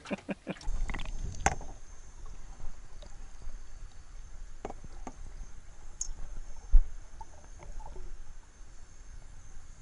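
Muffled underwater sound through a submerged camera in murky river water: a low rumble with scattered sharp clicks and one dull thump about seven seconds in.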